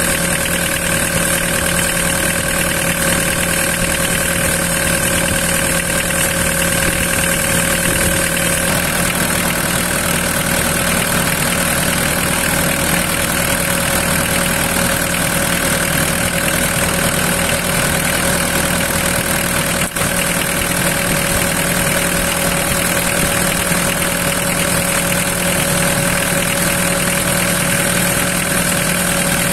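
Mitsubishi 4M40 four-cylinder diesel engine idling steadily, running to circulate flush water through its cooling system.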